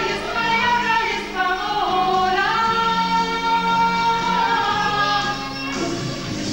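Women singing a song with musical accompaniment, gliding up into a long held note through the middle that breaks off shortly before the end.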